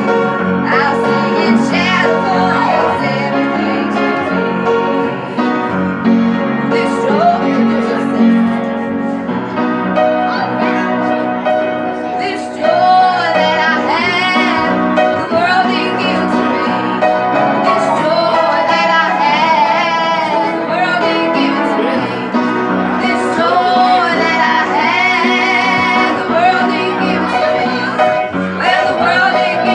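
Women singing a gospel song together, with upright piano accompaniment; the held notes waver with vibrato.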